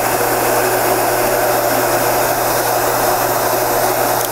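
Electric heat gun running steadily, its fan blowing hot air in a constant rush with a low hum, as it heats reflective vinyl film over rivets to relax it.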